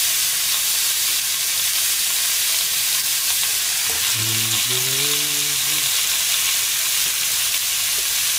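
Beef, daikon and fried tofu sizzling steadily in a frying pan over a gas flame, being sautéed for a nishime stew. About halfway through, a low voice hums briefly.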